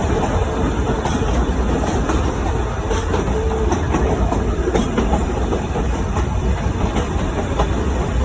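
Metre-gauge Nilgiri Mountain Railway toy train running along the track, heard as a steady rumble with occasional clicks of the wheels over the rails.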